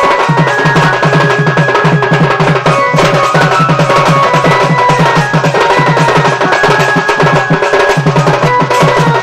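Folk dance music led by a hand-beaten two-headed barrel drum (dhol) in a fast, steady rhythm, with a held melody line from another instrument above it.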